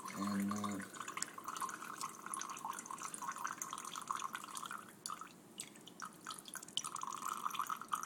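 Ice water from an absinthe fountain's tap dripping into a glass of absinthe, a quick, steady patter of drops that breaks off about five seconds in and resumes near the end. This is the slow drip that louches the absinthe to a milky green.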